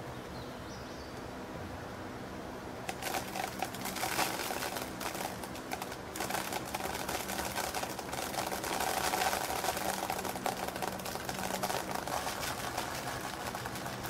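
Threshed wheat kernels poured from one plastic bowl into another in front of a running box fan: a dense pattering rattle of grain on plastic starts about three seconds in, over the fan's steady hum. The fan's airstream is blowing the chaff off the falling grain as it is winnowed.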